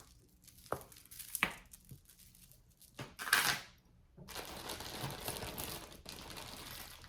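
Costume jewelry handled by hand: a few small clicks of pieces knocking together, then packaging crinkling for a few seconds as the pieces are rummaged through.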